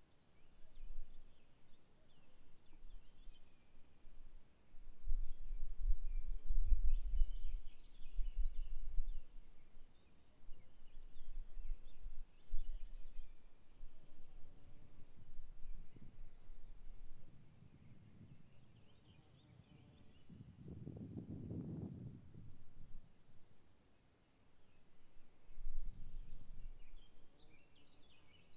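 Crickets trilling steadily in a high, unbroken drone, with wind gusting on the microphone in uneven low rumbles that are strongest in the first half and swell again briefly later on.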